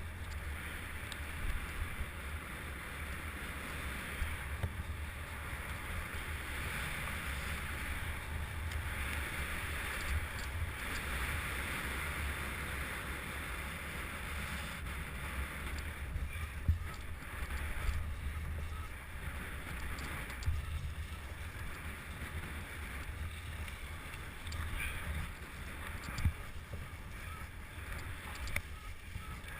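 Mountain bike descending rough terrain at speed: a steady low rumble and wind rushing over the microphone, with scattered rattling clicks.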